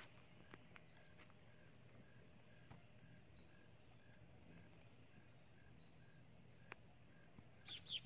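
Near silence: a faint, steady, high-pitched insect drone. Near the end comes a quick series of falling bird chirps.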